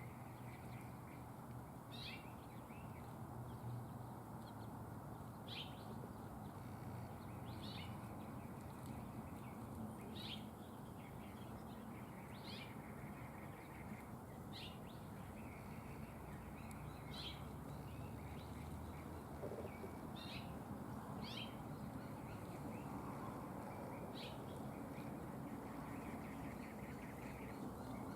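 Songbird repeating a short, sharp chip call, about ten times at intervals of two to three seconds, over steady low background noise.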